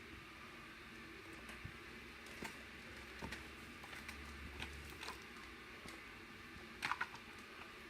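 Faint steady hiss with scattered light clicks and taps, and a louder cluster of clicks near the end.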